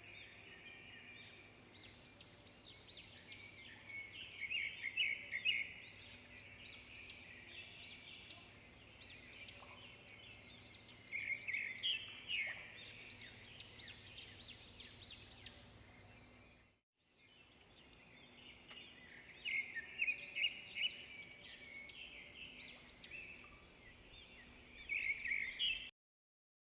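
Several songbirds chirping and twittering in quick, overlapping bursts, with louder clusters every several seconds. The sound drops out briefly about two-thirds of the way through and cuts off suddenly near the end.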